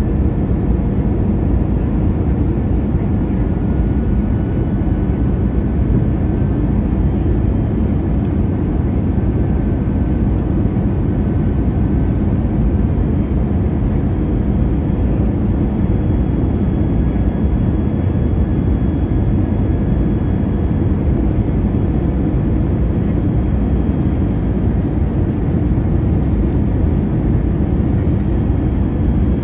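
Airbus A321 in flight: a steady, deep rumble of engines and rushing air, with faint thin whines that drift slightly in pitch.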